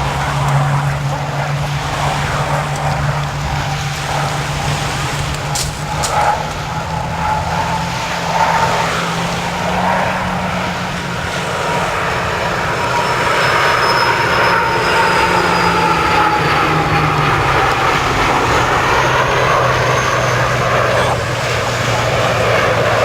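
Display aircraft engines droning steadily as aircraft fly past, the pitch sliding slowly down about halfway through as one passes. A brief sharp click about six seconds in.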